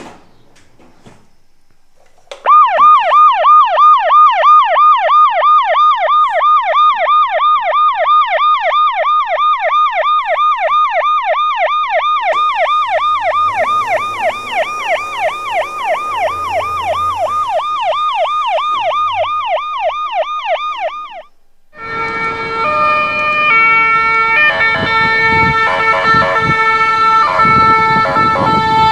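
Toy emergency vehicle's electronic siren, starting about two seconds in with a fast yelp that sweeps up and down about three to four times a second. Near the end of that stretch it stops briefly, then a different siren pattern of steady tones stepping between several pitches takes over.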